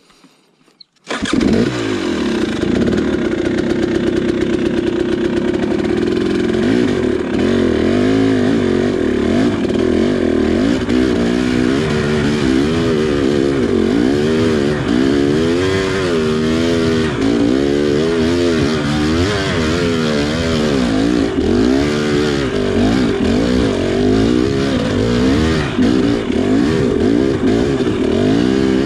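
2019 KTM 300 XC two-stroke dirt bike engine being ridden hard, its revs rising and falling constantly as the throttle is worked. The sound cuts in abruptly about a second in.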